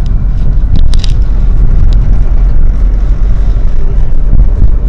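Car driving along, heard from inside the cabin: a steady low rumble of road and engine noise, with a couple of faint ticks about a second and two seconds in.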